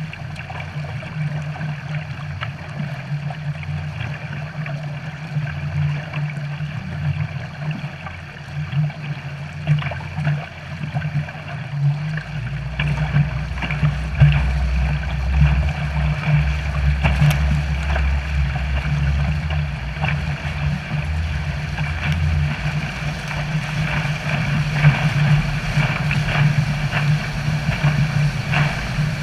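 Boat engine running steadily under way, with water rushing and splashing in the wake. About twelve seconds in a deeper low rumble joins for roughly ten seconds.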